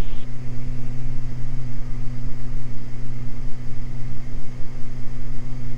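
Steady cockpit drone of the Beechcraft G58 Baron's twin six-cylinder Continental IO-550 engines and propellers in flight, an even low hum with no change in power. A band of radio hiss drops away just after the start.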